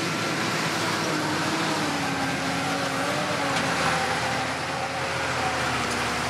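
Converted school bus's engine running under load as the bus drives over a rough dirt track, its pitch wavering and sinking slightly.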